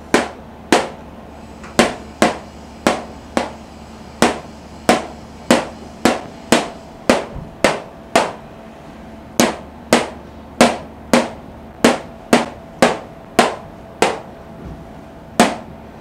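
Marker tapping against a whiteboard, one sharp tap about every half second, word by word along a line of writing.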